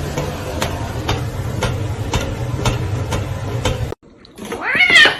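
A steady hum with a sharp click about twice a second, which stops abruptly about four seconds in. It is followed near the end by a loud single cat meow whose pitch rises and then falls.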